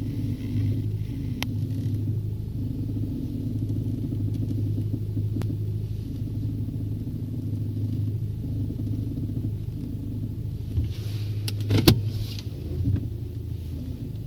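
Volkswagen Tiguan creaking as the steering wheel is turned, over the steady hum of the running engine. There are single sharp clicks about a second and five seconds in, and a louder cluster of knocks a couple of seconds before the end.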